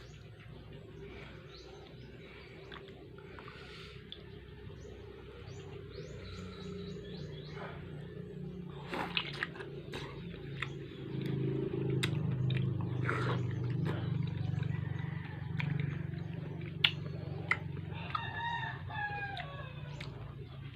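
A rooster crowing once near the end, a call of several stacked tones that falls in pitch. Under it runs a steady low hum, with scattered sharp clicks.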